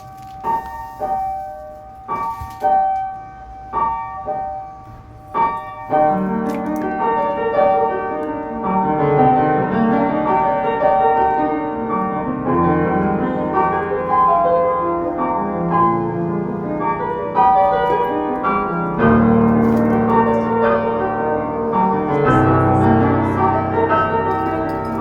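Background piano music: sparse single notes at first, then fuller chords with a bass line from about six seconds in.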